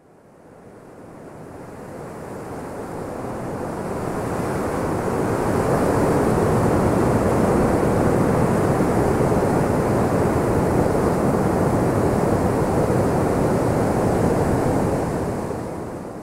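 Rushing river water over rapids, a steady roar of noise that fades in over the first several seconds and fades out near the end.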